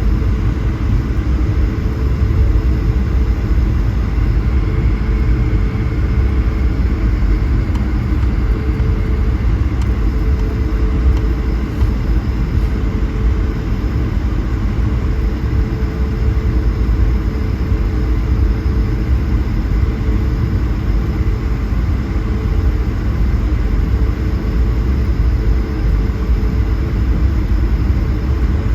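Steady cabin rumble of an Airbus A220-100's Pratt & Whitney PW1500G geared turbofans, heard from inside the passenger cabin, with a constant hum over the deep rumble.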